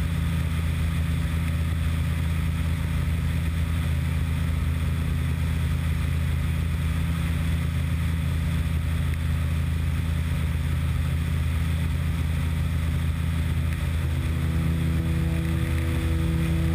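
Aero Adventure Aventura II amphibious light aircraft in level flight: its pusher engine and propeller drone steadily, with air rushing past the camera on the hull's nose.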